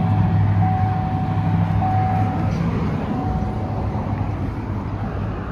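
Car engine idling steadily just after being started, so the alternator's charging output can be checked. The hum eases off slightly after about three seconds.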